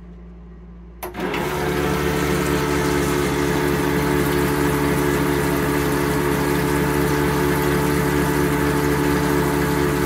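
Monomatic recirculating RV toilet flushing: its electric flush pump starts with a click about a second in and runs steadily, a humming motor with water rushing round the bowl.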